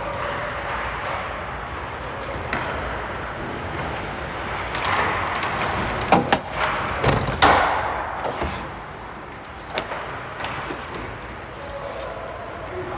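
Ice hockey play in front of the net: skate blades scraping the ice and a quick cluster of sharp clacks from sticks, puck and pads about six to seven and a half seconds in, over steady arena noise, then a few lighter clicks as play moves away.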